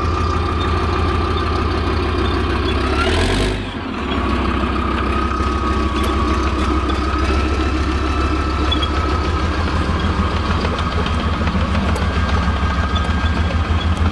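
Large vehicle engine running steadily: a low, evenly pulsing note with a steady whine above it. A short rising whine and a brief dip in level come about three seconds in.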